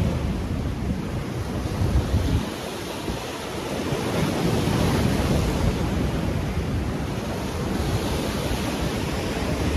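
Surf washing and breaking over shore rocks in a rough sea, a steady rushing that eases briefly a few seconds in and swells back, with wind rumbling on the microphone.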